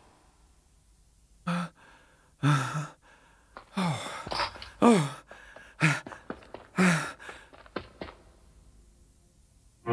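A young man's voice giving short gasps and sighs without words, about eight in a row, several sliding down in pitch.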